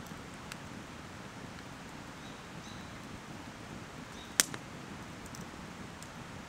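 Wood campfire burning in a metal fire ring: a steady hiss of flame with scattered small crackles, and one sharp pop from the burning wood about four seconds in.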